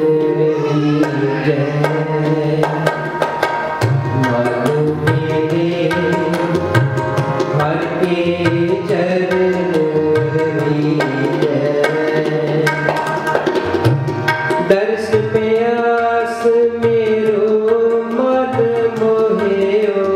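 Harmonium and tabla playing kirtan accompaniment: held harmonium chords and melody over a steady run of tabla strokes. A voice sings the word "charan" at the start.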